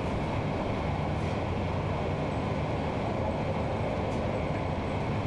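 Steady, even rumbling background noise with no change in level.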